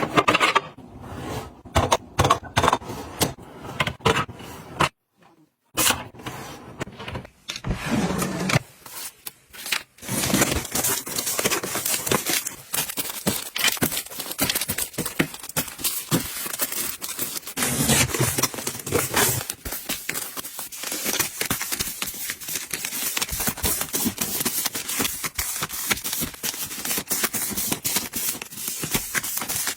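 Plastic wrapping and packaging being handled: scattered knocks and scrapes at first, then, from about ten seconds in, dense continuous crinkling and tearing.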